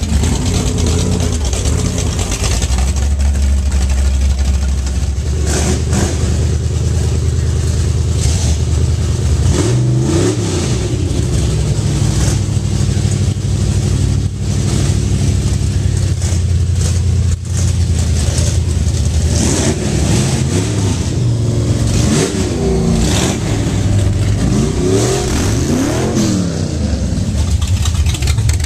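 Car engine running at a steady low hum, revved up and back down once about a third of the way in and several times in quick succession in the last third.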